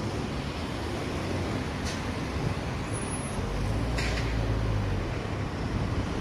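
Steady low rumble of motor vehicle traffic, engines and tyres on the road.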